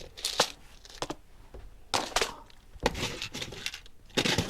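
Rummaging through a container of small parts: a series of short clatters and rattles, the loudest about two seconds in and again near the end.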